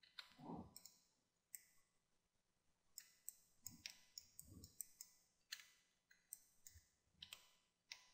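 Faint, scattered clicks of a computer mouse and keyboard, about a dozen at irregular intervals, against near silence.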